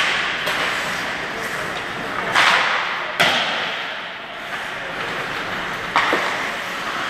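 Ice hockey play in an echoing rink: four sharp cracks of sticks and puck striking, at the start, about two and a half seconds in, just after three seconds and about six seconds in, each trailing off in the rink's echo.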